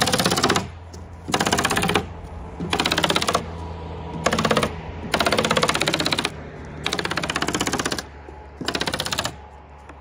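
Pneumatic stapler firing rapid strings of staples into synthetic roof underlayment, in seven quick bursts of half a second to a second each with short pauses between.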